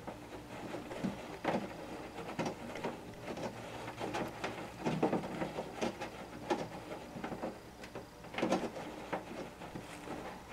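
Irregular short scrapes and clicks, about one a second, of a plastic fastener being screwed by hand onto a windshield-washer nozzle on the underside of a car hood, with the hand rubbing against the hood insulation pad.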